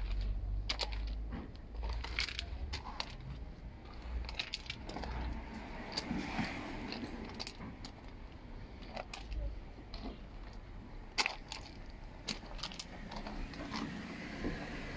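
Footsteps crunching on gravel: irregular sharp crunches and clicks over a low rumble.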